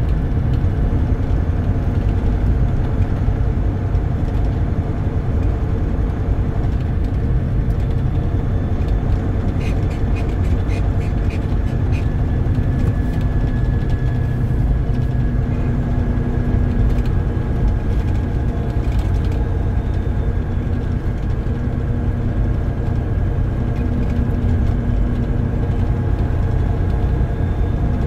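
Steady rumble of a car being driven, with road noise and a constant engine hum. A brief run of faint clicks comes about ten seconds in.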